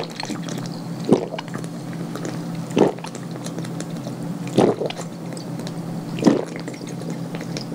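A person swallowing soda in gulps, drinking straight from a miniature glass bottle: five gulps, one about every second and a half to two seconds, over a steady low hum.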